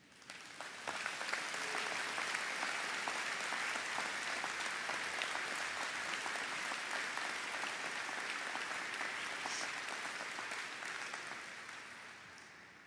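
Audience applauding: many hands clapping, swelling in over the first second, holding steady, then dying away near the end.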